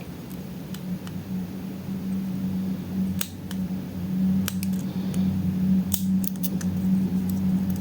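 Lock pick and tension wrench working the pins of a pin tumbler lock: scattered sharp, irregular metallic clicks and scrapes as the pins are picked one by one, over a steady low hum.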